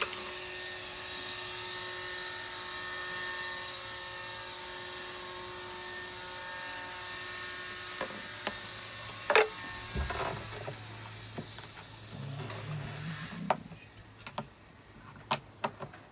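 A steady mechanical hum with several fixed tones for about the first nine seconds, then a scatter of sharp knocks and clunks as the camper table and its mounting hardware are handled against a van's rear door; the loudest knock comes about nine seconds in.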